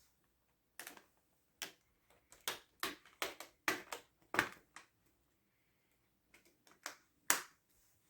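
Plastic laptop screen bezel being pressed back on, its clips snapping into place: a run of sharp clicks, about ten in the first five seconds, then a few more near the end.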